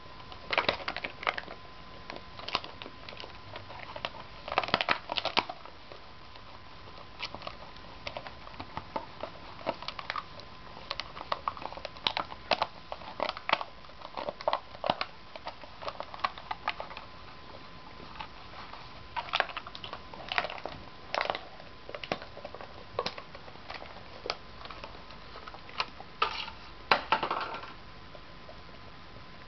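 Thin plastic yoghurt cup crackling and crinkling in irregular bursts as a basset hound chews and mouths at it, with busier spells about four seconds in and near the end.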